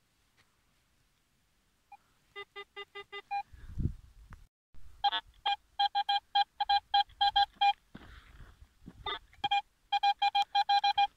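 Metal detector beeping on a target as the search coil is swept over ploughed soil. Runs of short electronic beeps come about four to five a second. The first run, about two and a half seconds in, has a lower tone mixed in, and the later runs are a single higher tone. Near silence comes before the beeping starts.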